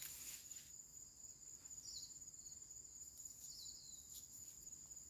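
Faint, steady high-pitched insect trilling, with two short falling chirps a second and a half apart. Soil clods scatter briefly at the start.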